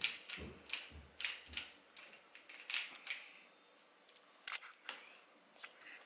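Plastic Rubik's cube layers being turned by hand: irregular quick clicks and clacks, several close together in the first three seconds and a sharp one about halfway through.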